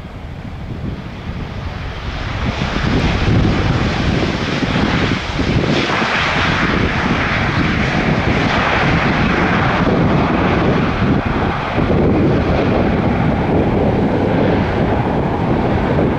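Boeing 787-9 twin-engine jet airliner landing. Its engine noise builds over the first few seconds to a loud, steady rush.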